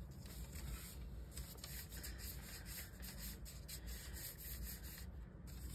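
Soft, irregular rubbing and scratchy rustling of hands moving over kraft paper and working a small lump of clay.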